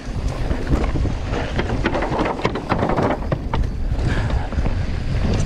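Wind buffeting the microphone of a mountain-bike rider's camera while descending a rough dirt trail, with tyres rumbling over dirt and rocks and the bike rattling and clacking over bumps.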